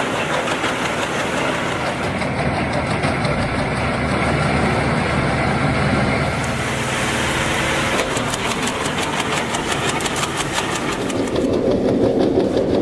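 Engine-driven wood chipper running, a steady mechanical din. About two-thirds of the way in it takes on a rapid, even rattling pulse, and near the end the sound turns lower and heavier.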